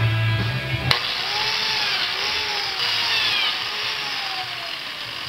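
Biscuit joiner motor running as it cuts slots in plywood, its pitch wavering up and down as it cuts. Background music ends with a sharp click about a second in.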